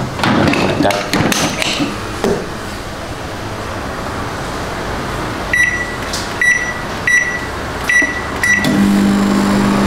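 Dishes clattering, then a microwave oven beeps five short times at uneven spacing as its keypad is pressed and starts up with a steady low hum near the end.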